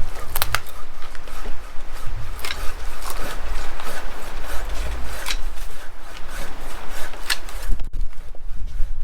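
Telescopic pole saw and pruner working through tree branches: wood scraping and rubbing, with a few sharp clicks spaced about two seconds apart.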